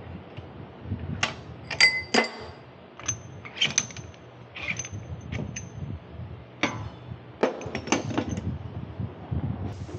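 Metal hand tools and parts clinking and knocking against each other: a dozen or so irregular sharp clinks, a few with a short metallic ring.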